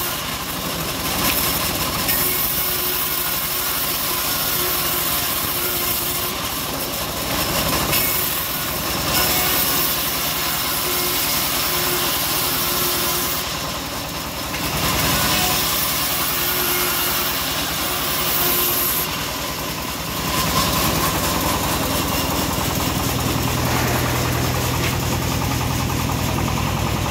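Homemade band sawmill running, its blade sawing old teak boards in several passes. A high hiss comes and goes with each cut over a steady machine drone.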